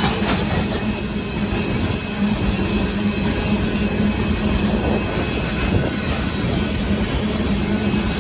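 Union Pacific freight train of hopper cars rolling past, a steady noise of wheels on rail that does not let up.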